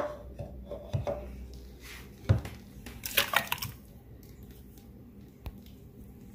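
Thick blended ice slush sliding and plopping out of a glass blender jar into a cup, with a few knocks and clinks of the jar and a louder slushy rush just past the middle.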